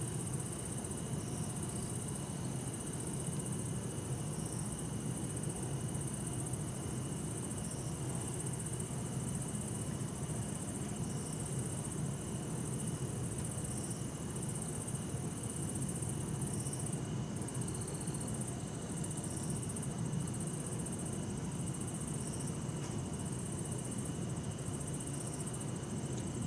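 Night insects, bell crickets among them, chirping and trilling: several steady high-pitched trills, one of them pulsing, with a short chirp repeating every couple of seconds. Underneath is a low, even hum of distant city traffic.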